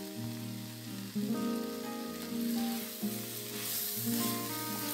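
Broccoli stir-fry sizzling in an iron kadai as the last of its added water cooks off, with background music of held notes playing over it.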